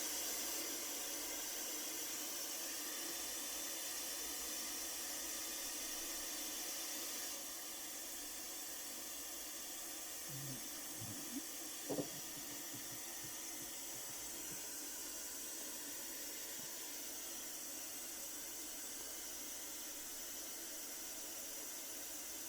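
Pink noise test signal playing steadily from a loudspeaker as an even hiss, used to drive a real-time analyser for room EQ calibration. It gets slightly quieter about seven seconds in, and a few faint knocks come around ten to twelve seconds in.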